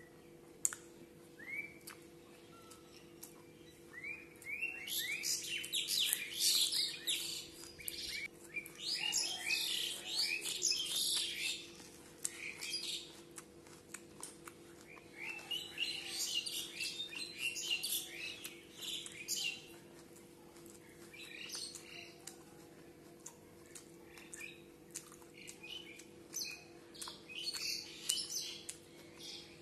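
Small birds chirping and twittering in several bursts of a few seconds each, quick high chirps that slide upward, over a faint steady hum.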